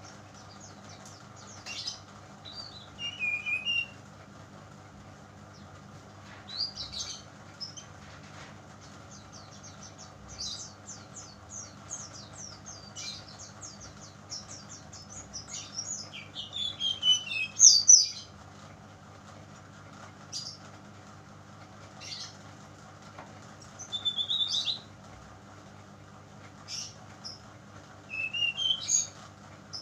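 Juvenile brown-chested jungle flycatcher singing in short bursts of high chirps and trills with pauses between, the loudest run about two thirds of the way through. It is a young spotted-plumage bird still learning its song. A steady low hum runs underneath.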